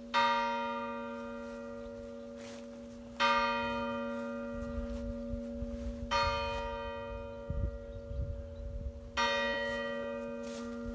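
A single church tower bell tolling slowly: four strokes about three seconds apart, each ringing on and fading before the next.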